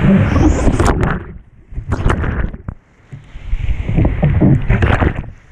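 Surf water rushing and splashing around a stand-up paddleboard riding a wave, with wind buffeting the microphone. The rush drops away for about two seconds in the middle, broken by a few sharp splashes, then comes back loud.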